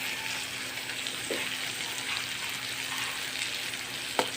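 Dried bilis (small dried fish) cooking with tomatoes in a frying pan, giving a steady sizzling hiss, with a single light knock near the end.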